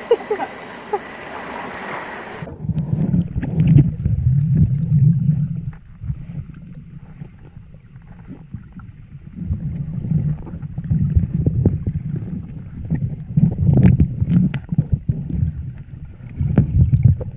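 Water splashing at the surface, then the sound turns to a muffled underwater rumble of moving water about two and a half seconds in, with scattered faint clicks. The low rumble swells and fades unevenly as the diver moves along the riverbed.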